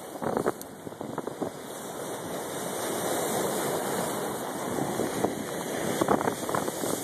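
Hurricane-driven surf breaking over a rock jetty and washing across the pavement, a continuous rush of water that swells through the middle. Strong wind buffets the microphone in gusts in the first second or so and again near the end.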